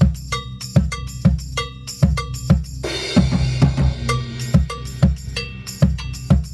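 Multiple-percussion solo played with sticks: low, pitched strokes on a large drum and tom-toms about twice a second, with sharper high strikes between them. About three seconds in, a noisy wash rings for roughly a second.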